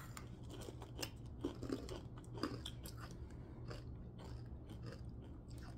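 Crunching and chewing of freeze-dried Sour Skittles: a run of small irregular crackles over a low steady hum.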